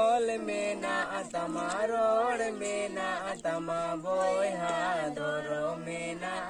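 A single voice singing a slow melody without accompaniment, with long held notes that waver in pitch.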